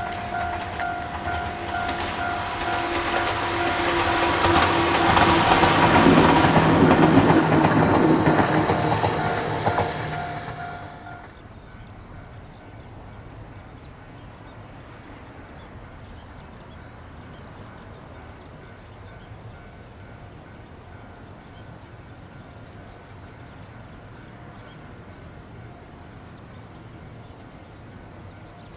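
A two-car Ohmi Railway 800-series electric train passing close by, with a steady whine over the running noise. It grows louder to a peak about six to eight seconds in. It cuts off abruptly at about eleven seconds, leaving faint steady outdoor background.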